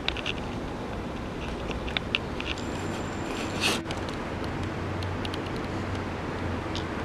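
Steady outdoor background noise with a low hum that swells in the middle, a few short clicks, and one brief harsh burst about three and a half seconds in.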